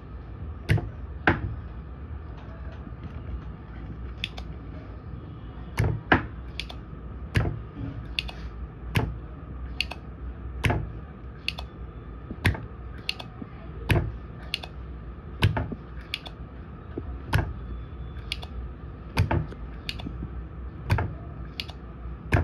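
Spring-loaded desoldering pump (solder sucker) firing again and again beside a soldering iron tip to suck molten solder out of through-hole pins on a circuit board. Sharp clacks come about every one and a half to two seconds, some in quick pairs as the plunger is pushed down and released, over a steady low hum.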